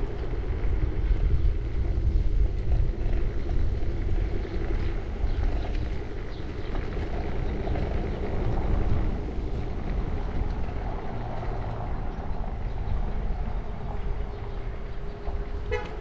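Bird electric scooter in motion: a steady, slightly wavering motor whine over the rumble of the small wheels on concrete, with heavy wind buffeting on the microphone. A short rattle of clicks comes near the end.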